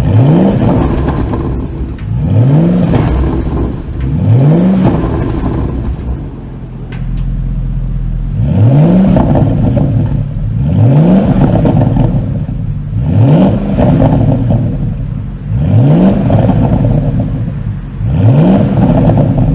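Porsche Panamera GTS twin-turbo V8 being revved in short throttle blips, eight in all: three quick ones, a short lull at idle, then five more, each rising and dropping back. The exhaust flaps are held fully open by an ECU tune.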